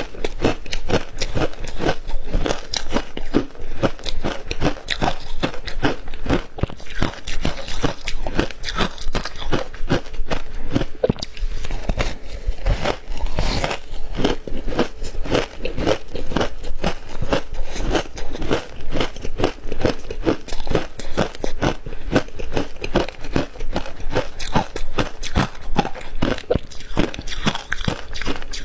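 Close-up crunching of ice being bitten and chewed, with rapid, continuous crunches and cracks.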